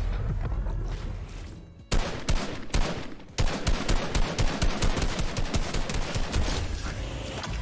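Video-game gunfire: a steady rushing noise for about two seconds, then a few single shots, then a long rapid string of shots at about four or five a second.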